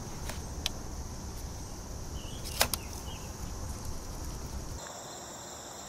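A few short plastic clicks as a four-pin power-window relay is pulled from and pushed back into the underhood fuse box; the loudest click comes about two and a half seconds in. A steady high insect drone runs under it.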